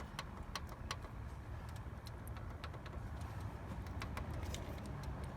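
Irregular light metallic clicks over a low steady background rumble: rocker arms on the exposed valvetrain of a 6.2 V8 being worked by hand to check for play, the engine off.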